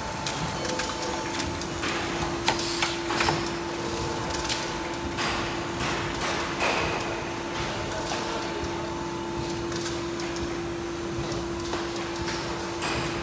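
Automatic blister cartoning machine running, with repeated clicks and knocks from its feeding and folding mechanisms over a steady hum that starts about a second in.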